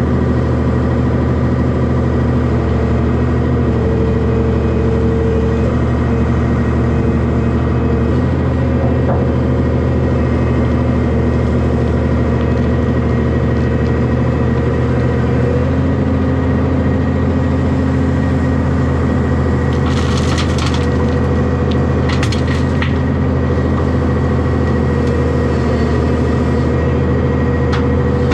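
Hyundai excavator's diesel engine running steadily while it works, with a short cluster of cracking and clattering about two-thirds of the way through.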